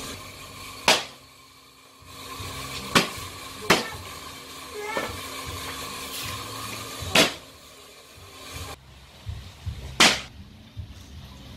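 Knife chopping frog meat on a wooden chopping board: about five sharp single chops, each a second or more apart, over a steady hum that stops about nine seconds in.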